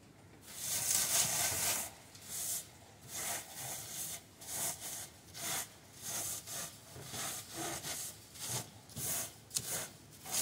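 Gloved hand rubbing dried mad dog skullcap stems and seed pods against a wire-mesh seed screen in a wooden frame, breaking down the pods to free the seeds. One long scrub about half a second in, then a steady run of short scratchy strokes about two a second.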